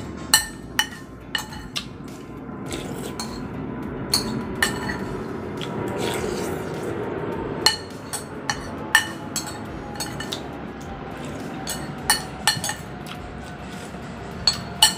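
Metal fork and spoon clinking and scraping against a ceramic bowl while eating the last of a bowl of noodles, about a dozen sharp clinks spread unevenly, with mouth and eating sounds in between.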